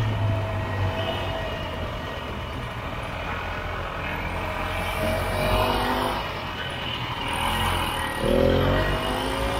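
1967 Ski-Doo Olympique's single-cylinder two-stroke engine running as the snowmobile moves through deep snow. Its pitch rises as it is throttled up about five seconds in, and again, louder, a little after eight seconds.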